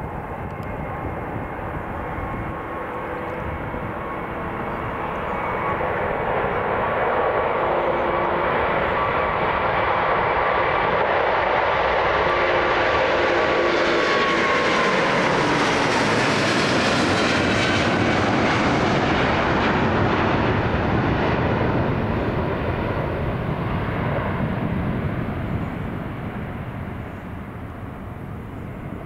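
Jet airliner taking off at full thrust and passing close by. The engine noise and its whine build up, peak around the middle, then drop in pitch as the aircraft goes past, and fade away.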